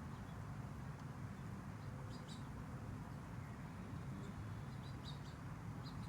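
Faint outdoor ambience: a steady low rumble with a few short, high bird chirps, once about two seconds in and again in a small cluster near the end.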